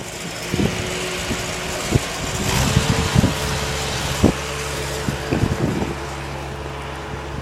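A motor running with a steady low hum under wind hiss, with a few light knocks.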